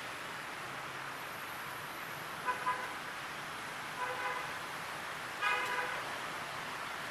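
Vehicle horn honking in short beeps: two quick toots about two and a half seconds in, a few more around four seconds, and a longer honk near the end. Under them runs a steady hiss.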